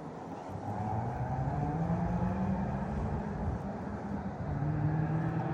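A motor vehicle's engine running, its pitch slowly rising, dipping about four seconds in, then rising again.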